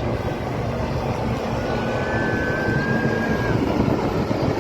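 Aircraft flying over at an air show: a steady rushing engine noise that grows a little louder toward the end. A thin high whistle sounds for about two seconds in the middle.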